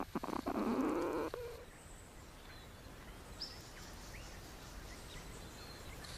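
A brief rushing noise lasting about a second and a half, then a quiet background with a few faint, short, high bird-like chirps.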